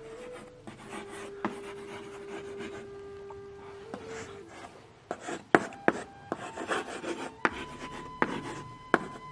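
Chalk scratching across a chalkboard as words are written out in strokes, with sharp taps of the chalk against the board, more of them in the second half.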